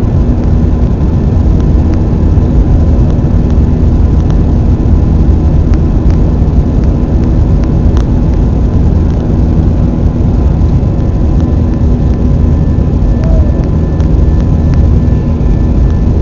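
Airbus A320 cabin noise: jet engines and rushing air making a loud, steady drone with a constant hum through it.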